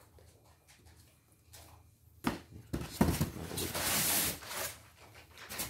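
An embroidery hoop and cables being set into a styrofoam packing box: a sharp knock about two seconds in, then a couple of seconds of styrofoam scraping and rubbing.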